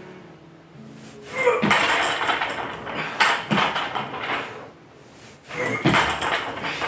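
Barbell loaded with bumper plates rattling and clanking through a hang clean, with a sharper clank about six seconds in as the bar is caught on the shoulders.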